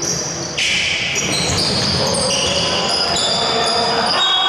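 Echoing court sounds in a large sports hall: players' voices and movement on the court, with a sudden high-pitched sound coming in about half a second in.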